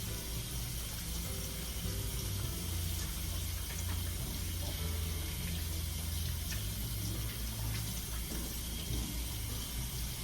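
Tap running steadily into a sink while hands are washed and scrubbed, with a low hum underneath.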